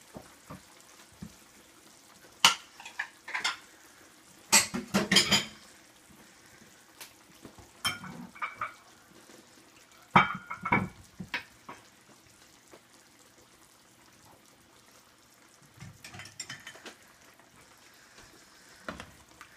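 Ceramic dishes and a spoon clinking and knocking in short clusters as a plate and bowl are set out on a wooden board. Under them is the faint bubbling of a creamy tomato sauce simmering in a nonstick pan.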